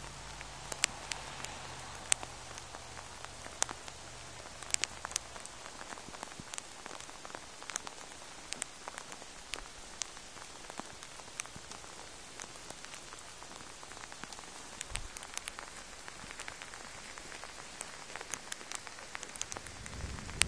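Steady rain falling, with scattered sharp drops tapping close by.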